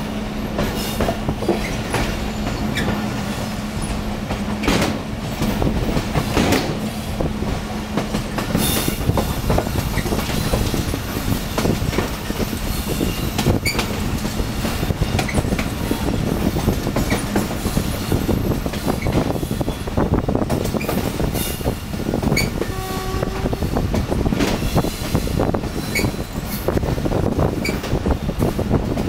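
Passenger train running, heard from an open coach door: steady rumble and wind, with the wheels clattering and clicking over the rail joints. A steady low hum in the first part fades out about a third of the way in.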